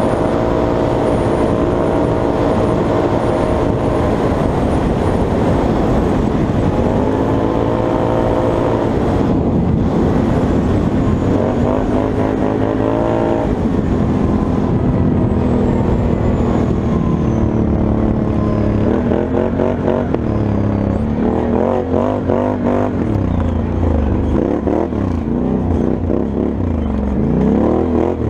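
Can-Am Outlander 1000 XT-P ATV's V-twin engine running under way. It holds a steady pitch, climbs and then drops back, and from about twenty seconds in the revs rise and fall quickly as the throttle is worked.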